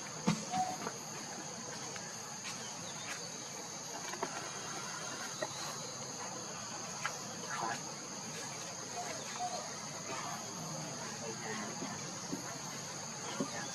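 Insects, such as crickets or cicadas, droning on in a steady high-pitched note, with scattered faint clicks and small rustles over it.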